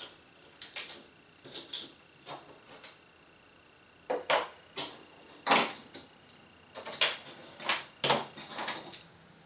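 Small hand tools and parts being picked up and set down on a tabletop: irregular clicks and clatters, sparse at first and busier from about halfway through.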